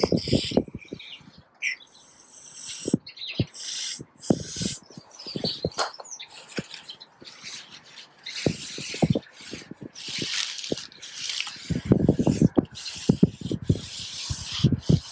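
Aerosol brake cleaner sprayed onto a new brake disc in short hisses, and paper towel rubbed and wiped over the disc to get the oil off, with scuffing and handling noises.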